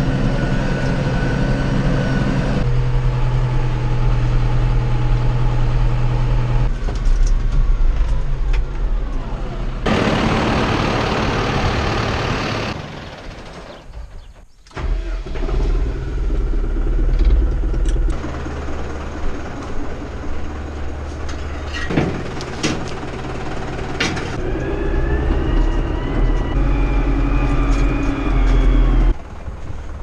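John Deere 5085M tractor's diesel engine running, heard from inside the cab, in several cuts at different engine speeds. There are a few sharp knocks and a rising whine in the second half.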